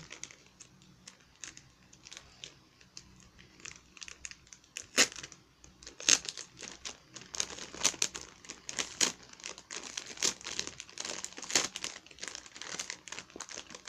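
Thin plastic packaging bag crinkling and crackling as fingers pull it open: quick irregular crackles, sparse at first, then louder and more frequent from about five seconds in.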